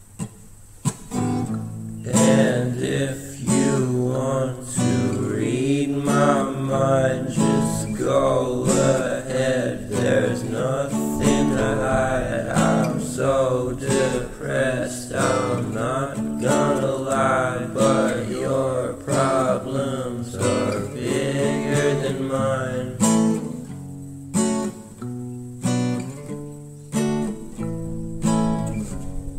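Background song with strummed acoustic guitar and a singing voice through the middle.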